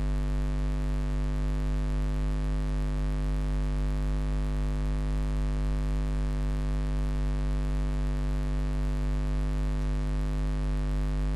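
Steady electrical mains hum: a low, unchanging buzz with a stack of overtones above it, picked up by the screen-capture recording's microphone input.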